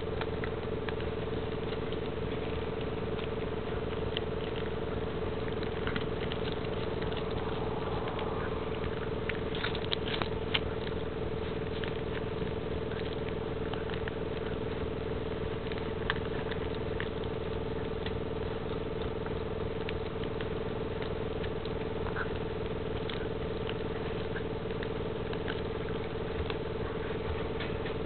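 Golden retriever puppy of about six weeks gnawing on a rawhide chew: small irregular clicks and scrapes of teeth on hide, a few sharper, over a steady background hum.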